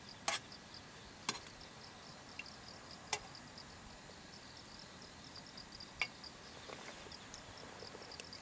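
Metal spoon clinking against a metal camping pot while stirring and scooping soup: four sharp clinks spread over the first six seconds. Insects chirp steadily behind it in a fast, even pulse.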